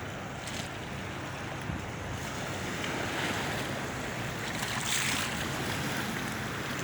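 Sea waves washing onto the shore, swelling twice, with wind rumbling on the microphone.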